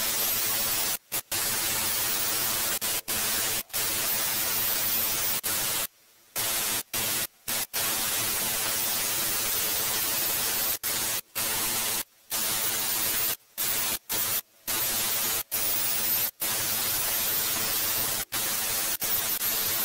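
Hand-held narrow belt file (belt sander) running and grinding into a dry beech-wood slingshot handle blank to shape it: a steady, hissing rush over a faint motor hum. The sound cuts out abruptly many times for a fraction of a second each.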